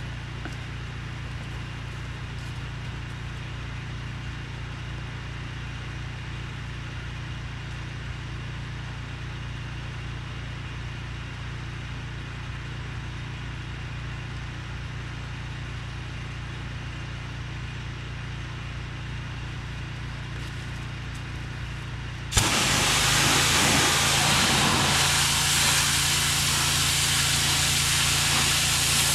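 HydroTek 30005VS pressure washer's engine running steadily. About 22 seconds in, the spray gun is triggered and a loud, steady hiss of high-pressure water starts over the engine, blasting moss off a stone slab table.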